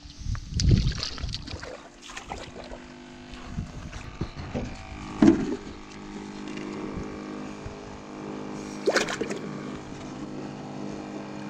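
Bait tank's aerator pump humming steadily, with water bubbling and splashing as a hand stirs among live bluegill bait. A few low thumps near the start.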